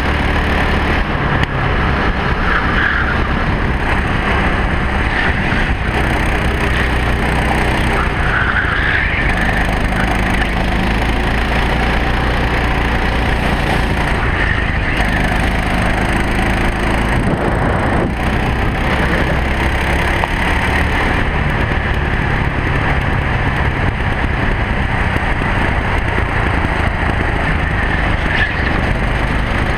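Racing kart's engine heard from on board at race pace, its pitch rising and falling repeatedly as the driver works the throttle.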